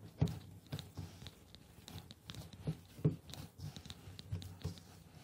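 A hand kneading whole-wheat flour dough in a plastic bowl: faint, irregular squishing and pressing sounds with soft knocks against the bowl, a few a second.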